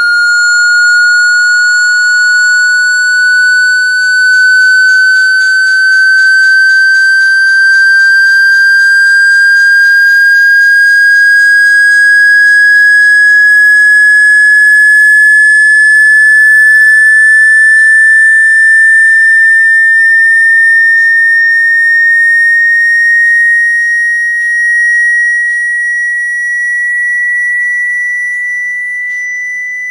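Electronically generated sine-tone sweep for ejecting water from a phone or earphone speaker: a single pure tone gliding slowly and steadily upward in pitch, and getting somewhat quieter near the end.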